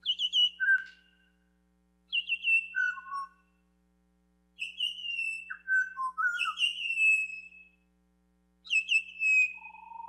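A played-back recording of a pied butcherbird singing: four bursts of clear, whistled notes with short pauses between them. Quick runs of high notes fall in pitch and stand above the lower notes. These runs are the pied butcherbird's three-note species call.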